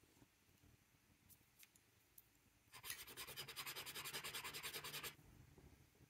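A pen nib scratching quickly back and forth on paper for about two seconds, laying down a stripe of ink, with a few faint ticks before it.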